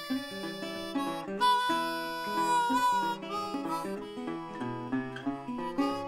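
Theme music, with harmonica held notes over plucked acoustic guitar.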